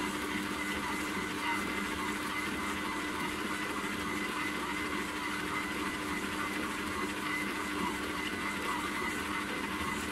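Aobosi 6L stand mixer running at speed 2, its motor giving a steady hum of constant pitch as the dough hook works flour into an early, dry shaggy dough.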